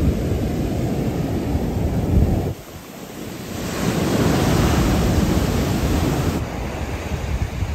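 Ocean surf breaking close to shore. A low rumbling wash for the first two seconds or so, a short lull, then a louder hissing wash of a breaking wave from about three and a half to six and a half seconds in, easing off near the end.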